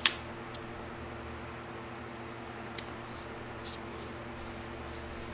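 Paper handling as a sticker is pressed onto a planner page and the page is lifted: a sharp click right at the start and another a little under three seconds in, over a steady low hum.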